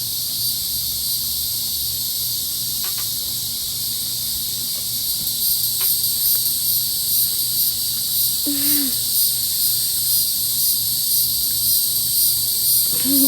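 Chorus of summer evening insects such as crickets: a dense, high, shrill sound that pulses evenly and goes on without a break.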